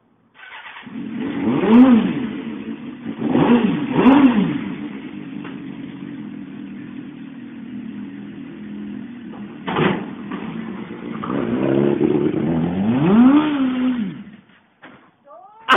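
Motorcycle engine running and being revved in several rising-and-falling bursts, with a sharp knock about ten seconds in; the engine cuts out about fourteen seconds in.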